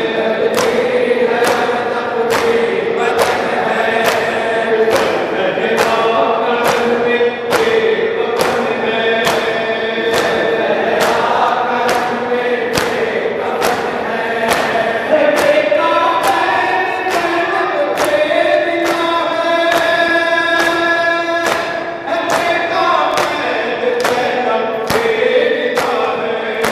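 Noha sung by a group of men chanting together in mourning, kept in time by rhythmic hand-on-chest matam strikes, a bit over one beat a second.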